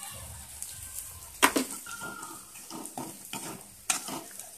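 Perforated metal ladle stirring and scraping shellfish frying in a steel kadhai, knocking against the pan, loudest about a second and a half in and again near the end, over a faint sizzle.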